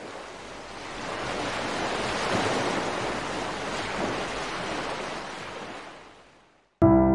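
Waves breaking in surf, a steady rush that fades in, swells twice and fades away. Near the end a loud sustained music chord starts suddenly.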